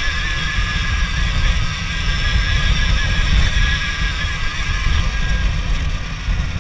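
Alta Redshift MXR electric dirt bike under way: the electric motor and drivetrain give a high whine over a heavy low rumble of wind and tyres on the dirt trail.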